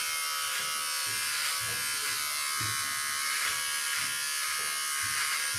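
Handheld electric trimmer running with a steady buzz as it cuts through a thick handlebar mustache.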